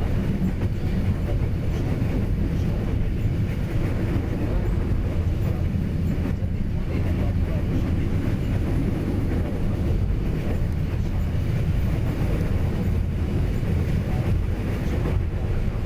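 Train running on the rails: a steady, unbroken low rumble.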